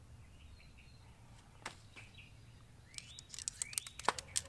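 Small birds chirping faintly over quiet outdoor air, with a couple of sharp clicks and some rustling as tent poles are pulled from their stuff sack, busier near the end.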